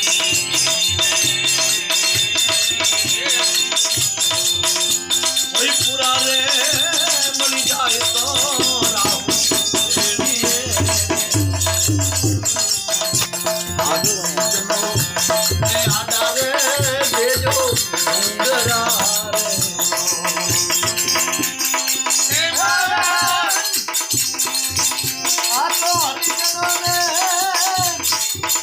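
Gujarati santvani bhajan music: a wavering melodic line over a fast, steady beat of hand percussion with continuous rattling.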